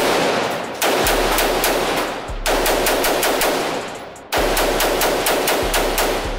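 Rapid gunfire in three long strings of many shots a second, with brief pauses between them and echo after each shot.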